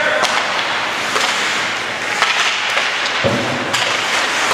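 Ice hockey play in a rink: a steady hiss of skates and rink noise, with four or five sharp clacks of sticks and puck spread through.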